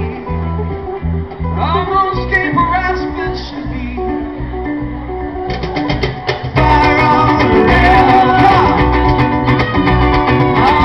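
Live acoustic band playing, with acoustic guitar, electric bass and cajon under a singing voice. About six and a half seconds in, the band comes in fuller and louder.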